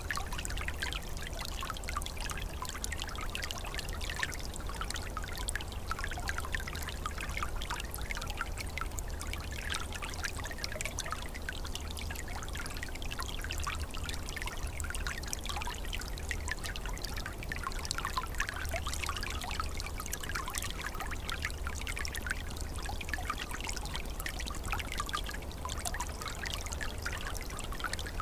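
Small forest stream flowing and trickling over its bed, a steady babbling of running water with many small splashing bubbles.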